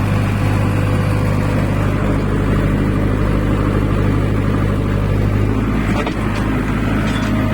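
Powertrac Euro tractor's diesel engine running steadily under load, pulling a trencher that cuts furrows for sugarcane planting.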